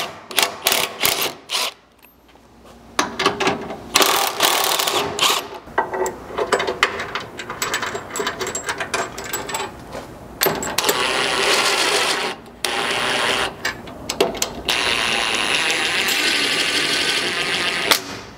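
Cordless brushless drill working steel truck frame, drilling and threading 7/16-inch holes for mounting bolts. It runs in short stuttering bursts at first, then in longer steady runs in the second half.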